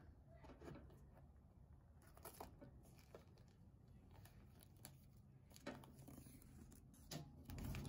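Near silence with a few faint, scattered rustles and clicks of a box and its packaging being handled, and louder rumbling handling noise starting near the end.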